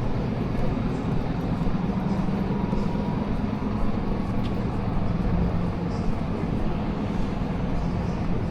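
Steady low rumble of city background noise with a constant low hum underneath, the kind of traffic and machinery noise heard walking past a busy London railway station.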